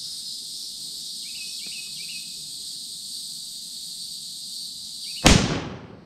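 A single rifle shot from a 6.5 Creedmoor bolt-action Mossberg Patriot, about five seconds in, dying away over most of a second. A steady insect buzz runs underneath before it.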